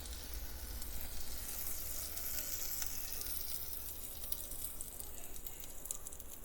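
Chicken pieces frying in hot oil in a preheated electric fryer, sizzling steadily with many small crackles.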